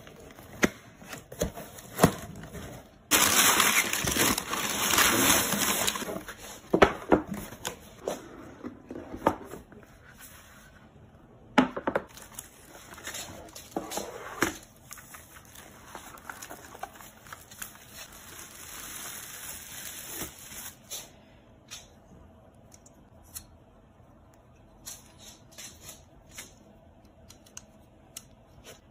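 Unboxing handling noise: a cardboard box and its packing torn open, with paper and packaging crinkling and rustling. Scattered clicks and knocks of parts being handled run through it. Near the end come lighter clicks as a folding metal stand is opened.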